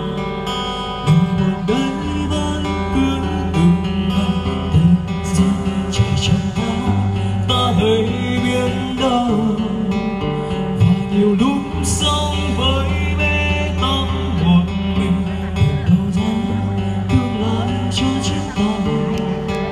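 A live band playing a slow ballad's instrumental passage between sung lines: a strummed acoustic guitar over sustained keyboard notes, with occasional hits on a box drum.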